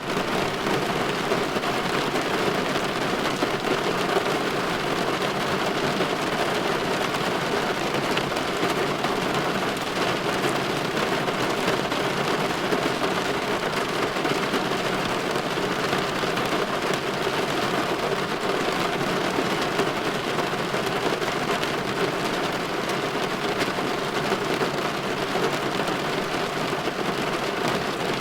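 Steady light rain pattering on window glass, an even patter of many small drops that holds constant throughout.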